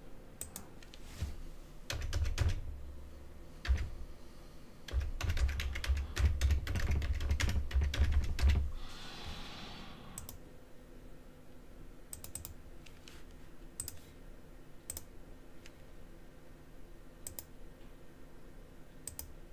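Typing on a computer keyboard: a short burst of keystrokes about two seconds in, then a longer fast run from about five to nine seconds, followed by sparse single clicks.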